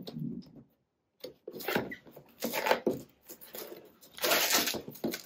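Folding knife cutting open a cardboard box, a string of short scraping and tearing sounds that grow loudest near the end.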